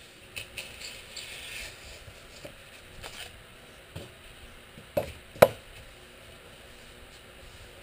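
Utility knife slicing and scraping through rigid foam insulation board, then scattered light clicks and two sharp knocks about five seconds in, the second the loudest.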